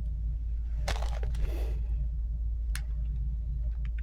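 A few scattered plastic clicks and a brief rustle from a Rubik's Cube being turned and handled, over a steady low hum.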